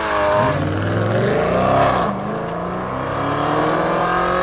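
Supercar engine accelerating hard. Its pitch climbs, drops once at an upshift about two seconds in, then climbs again more slowly.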